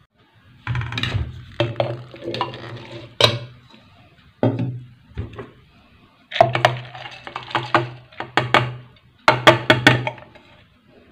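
Soaked sago pearls and fenugreek seeds being tipped from steel bowls into a steel mixer-grinder jar, with steel clinking against steel. The sound comes as about six separate pours, each lasting up to a second or so.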